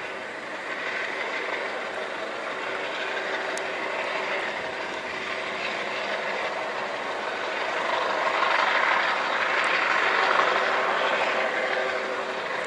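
Coast Guard MH-65 Dolphin helicopter hovering low, a steady rush of rotor and turbine noise with a few steady whining tones, growing louder for a few seconds past the middle.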